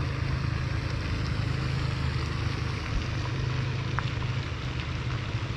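Steady outdoor noise: the even hiss of a pond fountain's spray over a low steady rumble, with one faint click about four seconds in.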